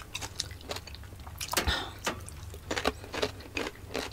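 Close-up eating sounds of raw cucumber being bitten and chewed: irregular crisp crunches and wet mouth clicks, with a longer noisy crunch about a second and a half in, over a low steady hum.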